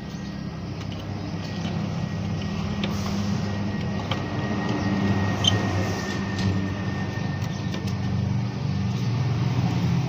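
Steady low rumble of a running vehicle engine, growing a little louder partway through, with a few small clicks over it.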